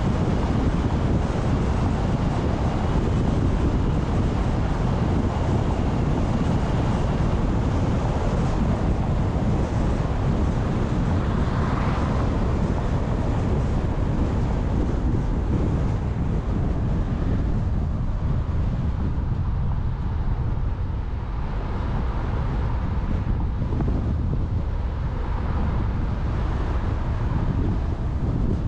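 Car driving along the road: steady wind rush on the microphone over low tyre and road rumble, thinning a little past the middle.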